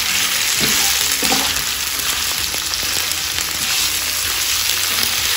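Goat tripe and sliced onions sizzling steadily in hot oil in a frying pan, stirred with a wooden spatula that scrapes and knocks against the pan now and then.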